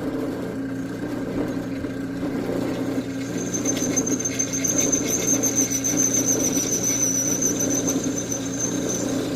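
Electric drill press running with its bit cutting into the hardened steel of an old chainsaw bar. The motor hums steadily, and from about three seconds in a high, thin squeal of the bit biting the hard steel sets in and holds.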